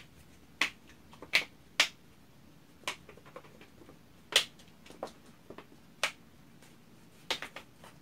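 Plastic bottle of homemade slime being shaken and handled, giving about a dozen sharp clicks and knocks at irregular intervals, with a quick run of clicks near the end.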